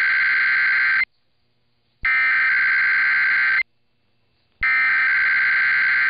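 Emergency Alert System SAME header: three identical bursts of shrill digital data tones, each about a second and a half long with about a second of silence between. They open a required EAS test broadcast, heard over AM radio with the high end cut off.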